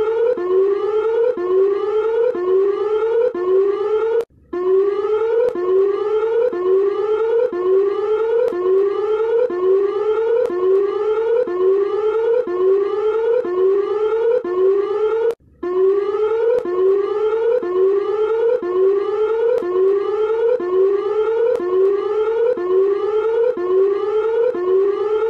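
Fan-made emergency-alert-style alarm tone: a loud whooping siren sweep that rises in pitch and repeats about three times every two seconds. It breaks off briefly twice, about four seconds and fifteen seconds in.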